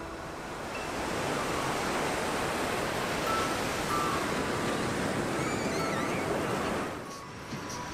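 Ocean surf: a steady rush of waves washing onto a beach, easing off near the end, with a few faint high chirps about six seconds in.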